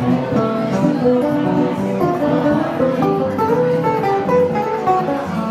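Two nylon-string acoustic guitars playing a bossa nova, plucked melody notes moving over strummed chords.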